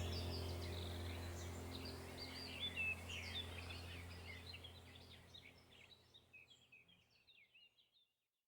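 Many small birds chirping and twittering over a low steady hum, the whole ambience fading out steadily to silence near the end.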